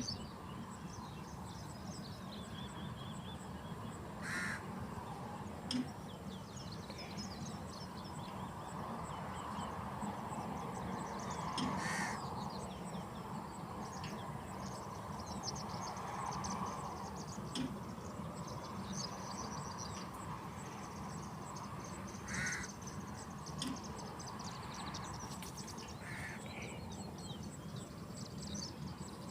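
Birds calling: four short, loud calls spaced several seconds apart, over a background of fainter, rapid high chirping and a steady low rumble.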